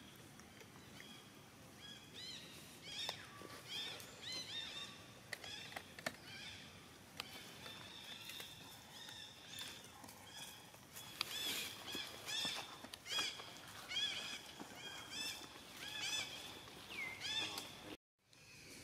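Many short, high-pitched chirping animal calls in quick runs, with a few sharp clicks among them. The calls break off abruptly near the end.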